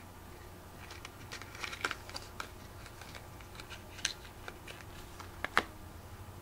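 Scattered small clicks, taps and light rustles of Inglot square eyeshadow pans and their little boxes being handled, loudest at about two seconds and five and a half seconds in.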